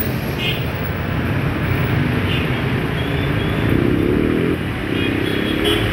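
City street traffic: cars and motorcycles running past in a steady rumble, with an engine rising in pitch about four seconds in and again near the end.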